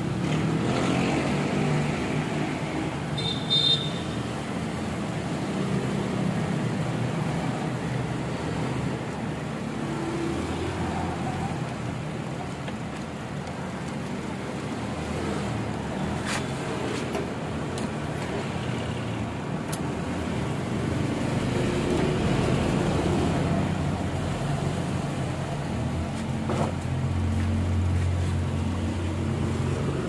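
Steady rumble of road traffic passing, swelling and easing, with a brief high-pitched tone about three and a half seconds in and a few sharp clicks later on.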